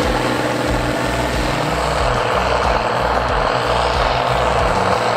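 Allis-Chalmers 7580 tractor's 7.0 L diesel engine running steadily, a loud, continuous heavy rumble.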